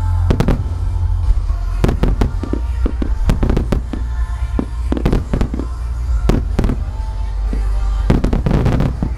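Firework shells bursting in rapid, irregular volleys of bangs, with the show's accompanying music playing underneath. The bangs come thickest about two seconds in and again near the end.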